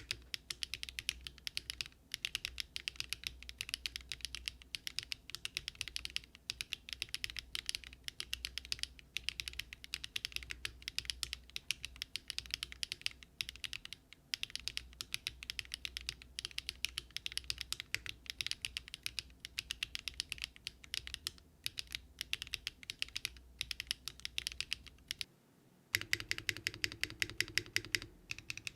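Fast, continuous typing on a Daring RUN Polygon-7 custom mechanical keyboard fitted with Luminkey Astral switches on an aluminium plate with no foam. Near the end the typing breaks off briefly, then resumes with a fuller, lower-sounding clack on the same keyboard rebuilt with an FR4 plate.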